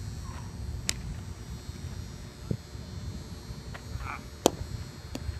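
Easton ASP100 softball bat striking a pitched softball: one sharp, loud crack about four and a half seconds in, with a weaker sharp knock about a second in.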